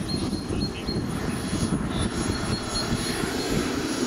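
Radio-controlled Viper model jet's engine running at taxi power with a steady high whine over a dense rumble as the model taxis.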